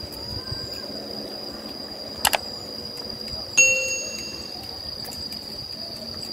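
Subscribe-button animation sound effect: a quick double mouse click, then about a second later a bright bell ding that rings out and fades. A steady high-pitched insect drone runs underneath.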